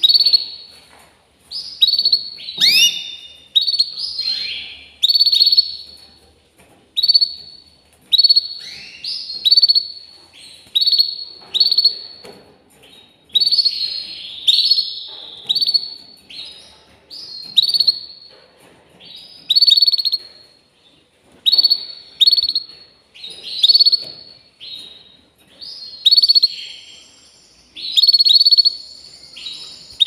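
Canary singing: short bright chirping phrases of quick falling notes, repeated about once a second with brief pauses between them.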